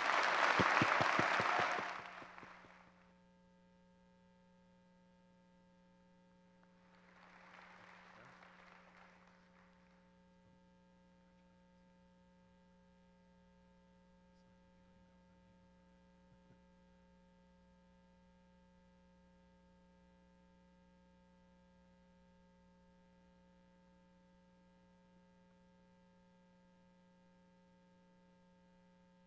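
Audience applauding for about three seconds, with a second, softer round of applause around eight seconds in. After that there is only a steady electrical mains hum.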